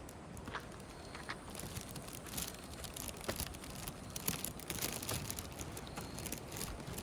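Faint rustling with scattered light clicks and crackles, and a steady high hiss from about a second and a half in.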